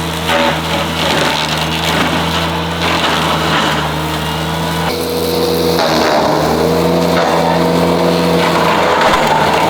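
Ventrac 4500-series tractor's engine running steadily under load while its Tough Cut brush mower cuts thick brush; the engine note shifts slightly about five seconds in.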